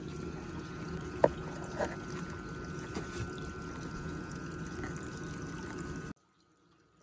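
Steady trickle of running water in a turtle tub, with one sharp tap about a second in. It cuts off suddenly about six seconds in.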